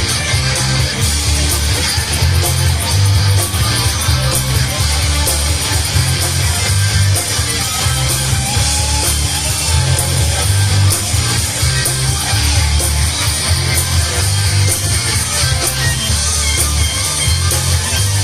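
Hard rock band playing an instrumental passage, with electric guitar over bass and drums driving a steady, heavy beat and no singing.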